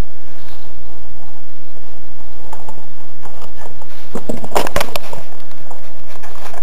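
Scattered light knocks and rustles, with a louder cluster of clattering knocks about four to five seconds in.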